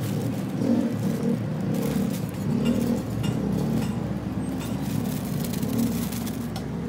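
A steady low engine rumble, like a motor vehicle running nearby, with a few light clicks of small metal parts being handled.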